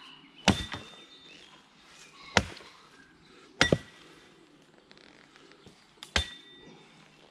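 Axe chopping into a birch log: four sharp strikes spaced one to two and a half seconds apart. A brief high ring follows three of them.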